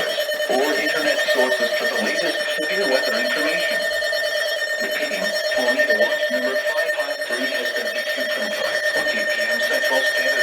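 Weather radio audio: a steady electronic alarm-like tone held throughout, over muffled, garbled voice-like sound.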